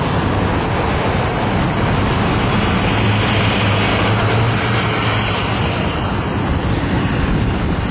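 Steady motor-vehicle noise, engine and road rumble, with a low hum that swells about three seconds in and fades again a few seconds later.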